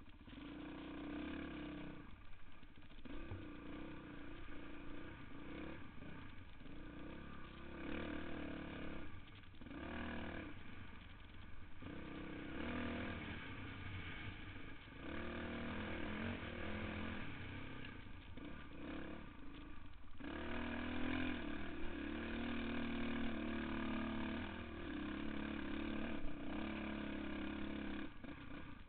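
Dirt bike engine under way, revving up and easing off over and over as the rider works the throttle along the trail.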